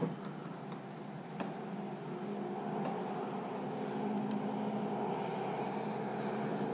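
A motor hums steadily at a fixed pitch, growing a little louder from about two seconds in, with a couple of sharp clicks near the start.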